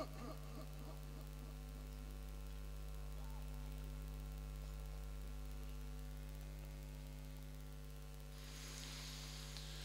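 Steady electrical mains hum from the microphone and sound system, a low buzz with a few higher overtones. There is a soft click at the start and a faint hiss near the end.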